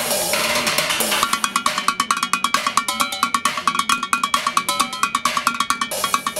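Drumsticks beating improvised street drums of pots, pans and buckets in a fast techno rhythm. A noisy wash opens it, then about a second in come rapid, even strikes, roughly eight a second, each with a metallic ring.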